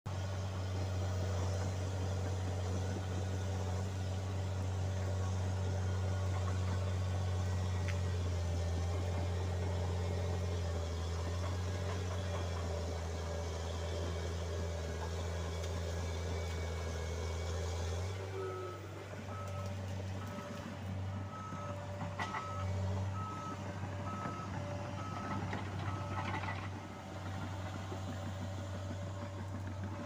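John Deere 750J-II crawler dozer's diesel engine running with a strong, steady low drone while it works the cleared ground. A little past halfway the engine note drops and varies, and the dozer's backup alarm beeps about one and a half times a second for some eight seconds: the machine is reversing.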